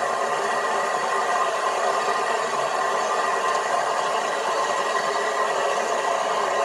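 A ride-on miniature railway train running along the track: a steady, even running noise with no breaks, and no deep bass.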